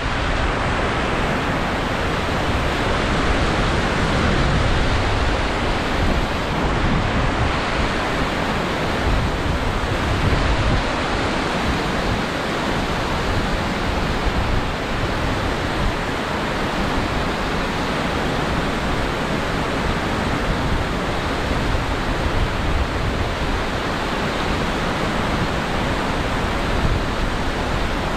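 Water pouring over a concrete spillway weir and churning in white water below: a steady rushing noise.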